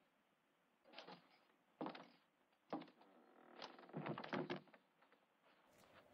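A wooden door knocking and creaking: several sharp knocks about a second apart, with a creak among the last ones.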